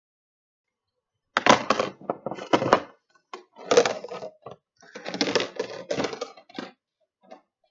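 Plastic bucket-style container being handled, a run of irregular clattering knocks and scrapes starting about a second and a half in and lasting roughly five seconds.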